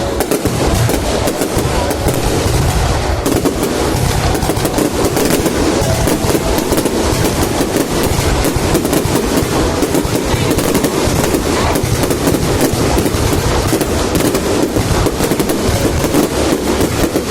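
Fireworks display going off as a dense, continuous barrage of rapid bangs and crackles, with no pause.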